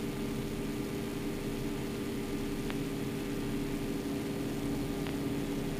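Yak-52's nine-cylinder M-14P radial engine droning steadily in formation cruise, heard muffled inside the closed cockpit, with two faint ticks.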